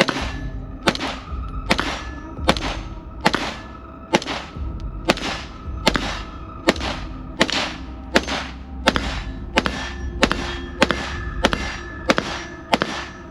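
Springfield Armory Hellion 5.56 mm bullpup rifle fired in steady semi-automatic succession, about seventeen shots at roughly one every 0.8 s, quickening slightly near the end.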